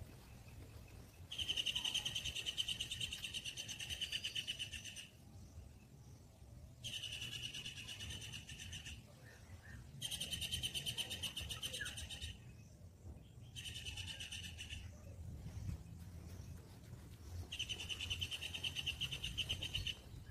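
A high, rapid pulsing trill from a calling animal, heard five times in bouts of two to four seconds each, with short gaps between them.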